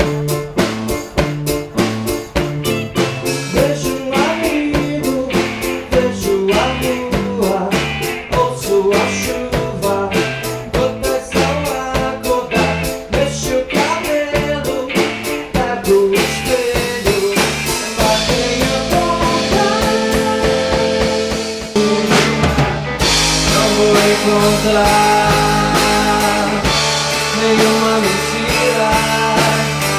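Pop-rock band music: a steady drum beat with bass and guitar, the arrangement growing fuller and louder about two-thirds of the way through.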